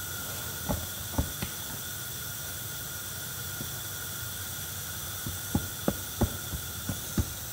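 Dull thumps and knocks of rubber being pushed and slapped as an inner tube is worked into a truck tyre by hand and foot. A few come about a second in and a quicker run in the last two seconds, over a steady background hiss.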